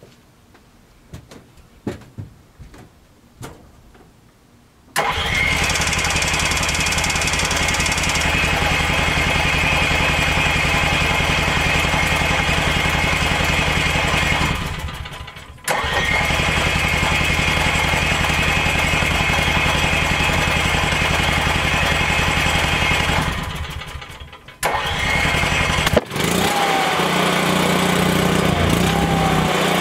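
Onan 2.8 kW RV generator being cranked on its starter about five seconds in: it turns over steadily for about nine seconds, stops briefly, then cranks again for about eight seconds. After another short pause and a sharp click it catches near the end and settles into running. A slow, hard start, typical of this generator losing its fuel prime, that a freshly installed fuel primer bulb has not cured.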